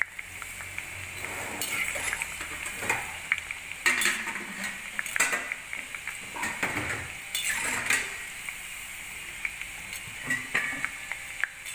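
Gram-flour gathia sizzling steadily in hot oil in a kadai, with a metal perforated skimmer scraping and clinking against the pan several times as the strands are turned over.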